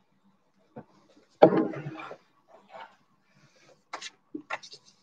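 Handling sounds on a table: a thump with a rustle, then a few light taps and flaps as a sheet of stiff card is put down.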